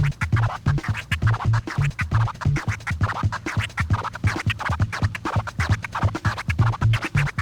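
Vinyl record scratched on a turntable in the 'jackhammer' technique: a rapid, stuttering run of short scratch strokes over a beat with a pulsing bass line.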